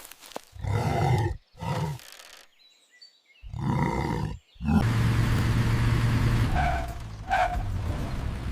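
Straining, roar-like grunts of effort from a cartoon animal character pushing hard, three short bursts, then a steady low rumble from about five seconds in.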